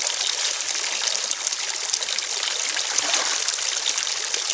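Pond water trickling and splashing steadily, with koi churning the surface as they crowd in to feed, making many small splashes.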